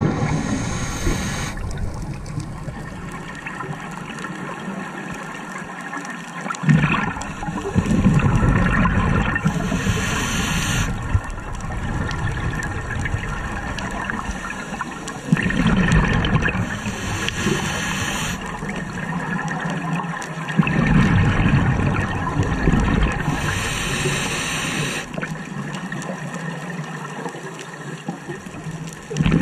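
Scuba diver breathing through a regulator: slow breaths about every seven seconds, each a short high hiss on the inhale and a gurgling rush of bubbles on the exhale.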